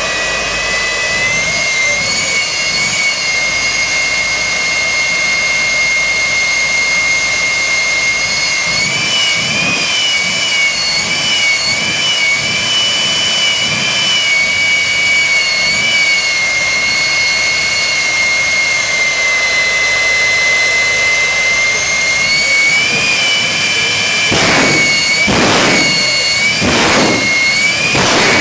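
Jet-powered semi truck's jet engine running with a loud, steady high-pitched whine, its pitch lifting and wavering slightly now and then. Near the end come a few short rushing surges.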